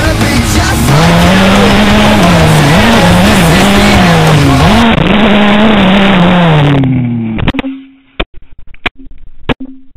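Dirt bike engine revving up and down while riding, heard through a camera on the front number plate, which makes it sound odd. About seven and a half seconds in the engine sound drops away suddenly and is replaced by a series of sharp knocks and clatters as the detached camera tumbles across the ground.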